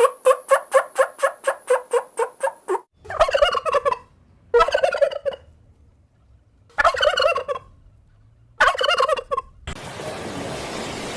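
Turkey gobbling: a fast rattling gobble for about the first three seconds, then four shorter separate calls. Near the end a steady background noise takes over.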